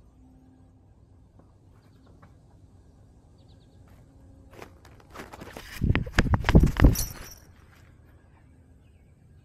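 Quick, dense thumps and rustling from a camera worn by a cat as it moves, about two seconds long, starting a little past halfway after a quiet stretch.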